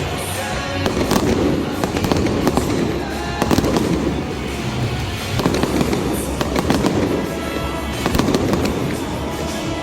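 Fireworks going off in a rapid string of bangs and crackles, over music playing throughout.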